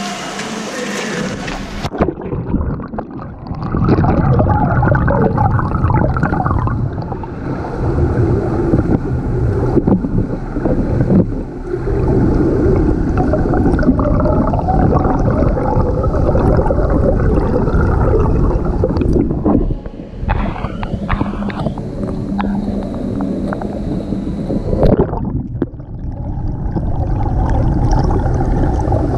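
Muffled water noise from a camera in a waterproof housing moving through pool water, a steady churning and gurgling as a freestyle swimmer strokes and kicks past. A brighter, hissing sound cuts off abruptly about two seconds in.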